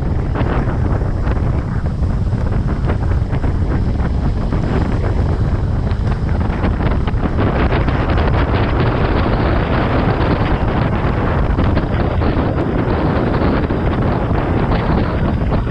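Wind rushing over the microphone of a camera riding on a moving motorbike: a steady, loud rush with a heavy low rumble.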